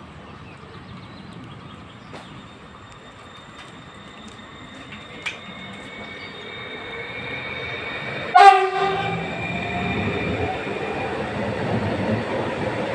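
EN75 electric multiple unit (a Stadler FLIRT) running into the station. Its rolling noise and a faint whine grow louder as it nears. About eight seconds in it sounds one short, loud horn blast, and the cars then roll past louder.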